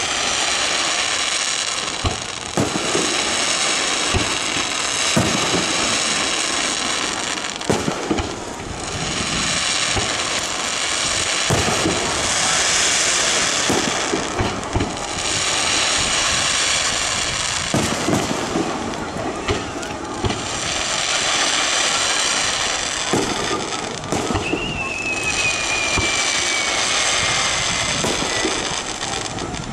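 Aerial fireworks shells bursting in quick succession: about a dozen sharp bangs, over a dense crackling hiss that swells and fades every few seconds. A whistle falls in pitch for a few seconds late on.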